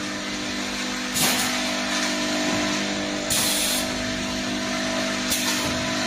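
A servo-driven piston filling machine running, with a steady mechanical hum. Sharp hisses of air come about a second in and about five seconds in, and a longer half-second hiss comes about three seconds in.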